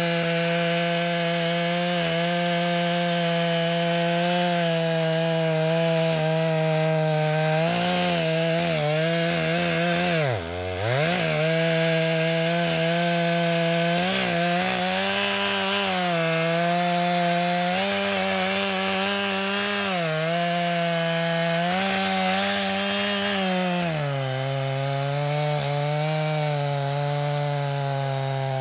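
Two-stroke chainsaw running at high revs while cutting into the base of a standing hardwood tree. About ten seconds in, the revs drop sharply under load and recover. The pitch then rises and falls as the bar is worked in the cut, and it settles to a slightly lower, steady pitch for the last few seconds.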